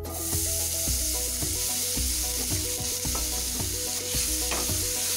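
Finely chopped onions sizzling as they fry in hot oil and butter in a kadhai. The sizzle starts the moment they hit the pan and stays steady.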